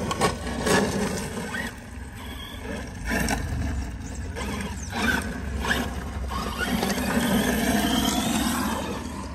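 Two ARRMA 6S brushless RC trucks, a Big Rock 6S and a Sledge 6S, driving on gravel: the electric motors whine up and down with the throttle and the tyres kick and scrape over loose gravel, with several short louder bursts.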